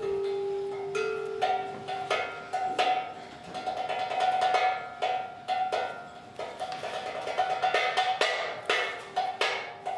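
Percussive music: quick, irregular clattering strikes over a held tone that steps up in pitch about a second and a half in.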